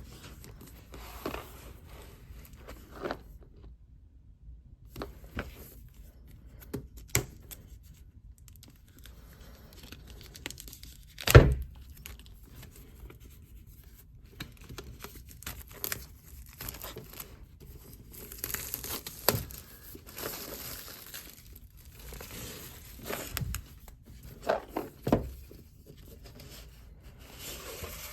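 Packaging of a Pokémon Celebrations card product being torn open and handled: scattered tearing and crinkling with small clicks, and one loud knock about eleven seconds in.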